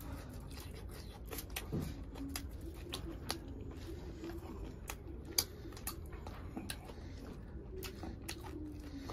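Close-miked wet mouth sounds of someone eating curry by hand: irregular smacking clicks from chewing and licking gravy off the fingers, under a soft low wavering hum from the eater.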